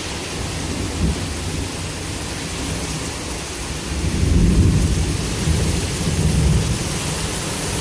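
Heavy rain pouring steadily in a severe thunderstorm, with thunder rumbling low underneath and swelling about four seconds in and again a couple of seconds later.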